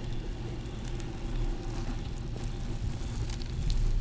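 Flatland BMX bike rolling on damp asphalt: a steady hiss of tyre noise with a few faint clicks from the bike.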